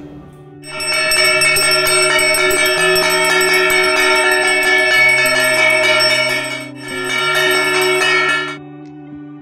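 A puja bell rung continuously for about eight seconds, with a short break about seven seconds in, over quieter background music.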